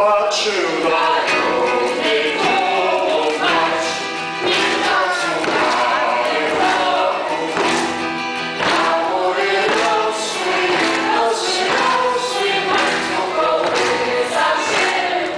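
A choir of young performers and a man singing a song together.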